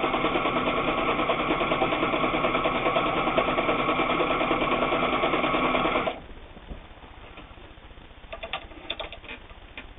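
Janome New Home Double Duty all-metal sewing machine running at a steady speed, straight-stitching through eight layers of denim without labouring, then stopping suddenly about six seconds in. A few faint clicks and rustles follow near the end.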